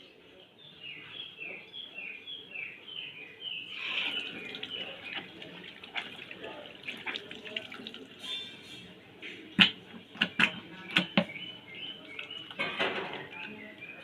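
Tap water running into a sink, with several sharp knocks about ten seconds in. Short falling chirps repeat two or three times a second in the first few seconds.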